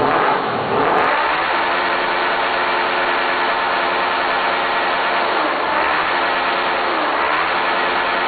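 Honda CB 500 motorcycle's parallel-twin engine idling steadily. A rev dies away in the first second, and the idle wavers briefly twice later on.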